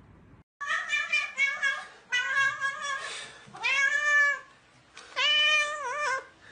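Cat meowing loudly over and over: first short, choppy meows, then longer drawn-out ones, the last one long and wavering in pitch.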